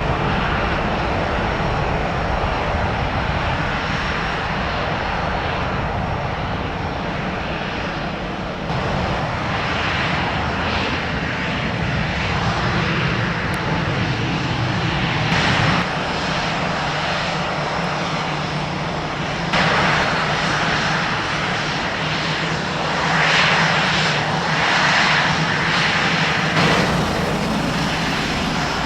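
Jet airliner engines running steadily at low power, a continuous broad rushing noise that shifts abruptly in tone several times.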